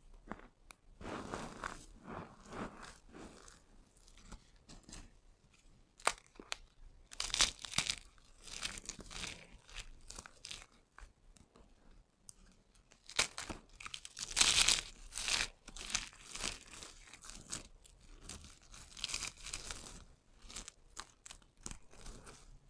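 Dry soap cubes and shavings being crushed and crumbled by hand: crisp crunching and crackling in uneven bursts, with a few sharp snaps in between.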